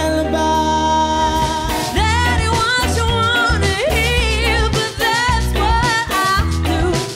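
Live pop-soul band playing with male and female vocalists singing. A chord is held for about two seconds, then the bass and drums come back in under a voice singing with strong vibrato.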